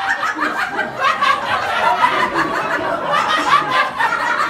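Club audience laughing and chuckling steadily, many voices at once.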